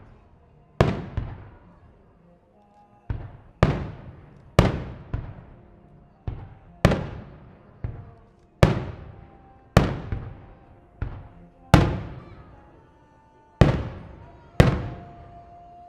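Aerial firework shells bursting one after another, more than a dozen sharp booms at uneven spacing, each trailing off in an echo over about a second. Faint music with long held notes plays between the bursts for the synchronized show.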